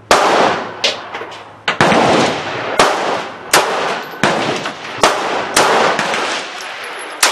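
Gunfire: about eight sharp shots in quick succession, roughly one every 0.7 seconds, each followed by a long echoing tail.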